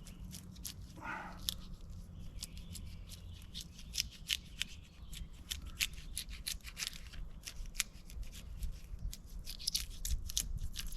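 Knife cutting into and peeling birch bark from a living birch, with many irregular sharp crackles and snaps.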